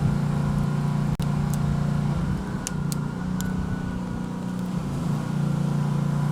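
Steady mechanical hum like a motor or engine running, with a slight change in pitch midway and a few faint clicks.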